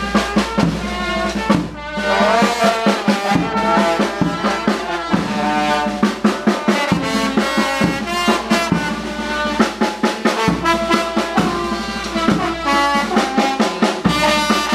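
Vietnamese funeral brass band playing a tune: trumpets and other brass horns over a steady drum beat.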